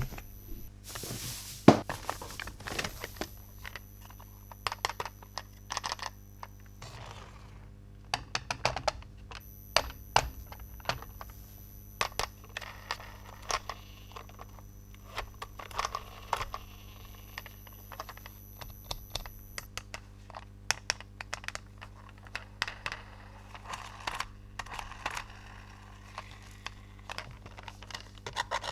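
Hands handling plastic toy pieces and packaging: scattered light clicks, taps and scrapes, with one sharper click about two seconds in, over a faint steady hum.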